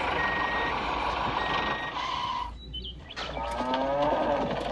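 Two short reversing beeps over a running vehicle engine, then a cow mooing, one call starting about three seconds in.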